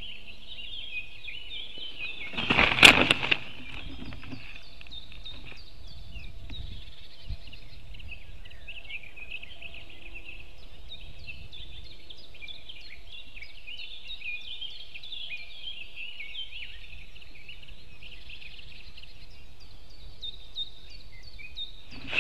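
Forest songbirds singing throughout, many overlapping chirps and trills. About two and a half seconds in, a short, loud flurry of wing flapping and rustling sticks as an eagle lands on its stick nest.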